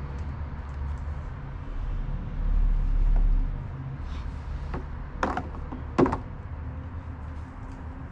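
Low rumbling of wind on the microphone, swelling for about a second partway through, with a few sharp knocks. The two loudest knocks come about five and six seconds in.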